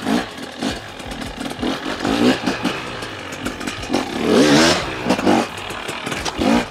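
A 300cc two-stroke enduro motorcycle engine revving under hard throttle, its pitch rising and falling again and again as the rider works the throttle. The loudest burst comes about four and a half seconds in.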